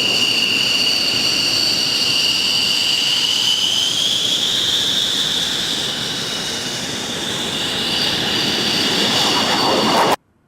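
F-16 fighter jet engine running, a steady high turbine whine over a roar, the whine rising slightly in pitch about four seconds in. The recording cuts off abruptly just before the end.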